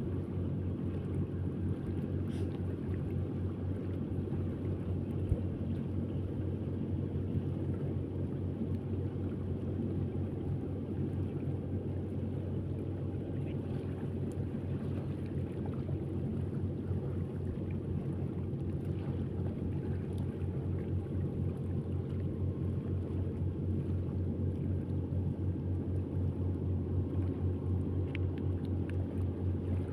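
Boat engine running at a steady speed, a constant low drone with no change in pitch.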